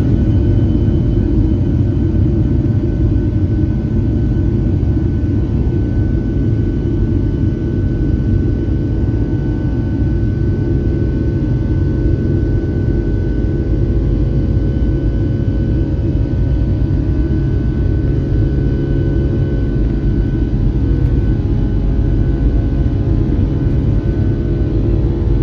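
Boeing 757-200's Rolls-Royce RB211 jet engines heard from inside the passenger cabin: a loud steady rumble with a few steady whining tones over it, at high power during the takeoff and climb.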